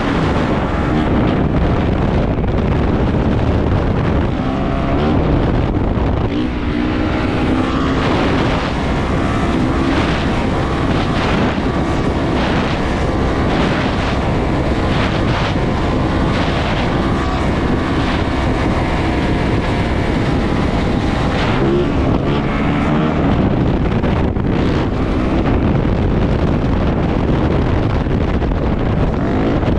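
450cc four-stroke dirt bike engine running while riding, its pitch rising and falling as the throttle opens and closes, with wind buffeting the microphone.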